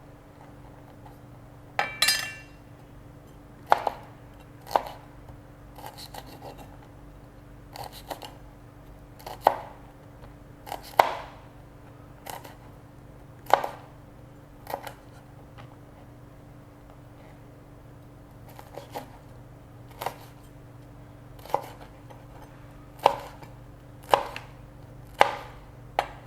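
Knife chopping small red chili peppers on a plastic chopping board: separate sharp knocks at an uneven pace, one every second or two.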